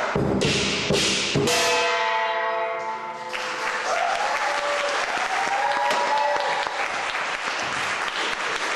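Closing strikes of the lion dance percussion: several loud crashes of gong and cymbals in the first second and a half, left ringing and fading. From about three seconds in, an audience applauds and cheers.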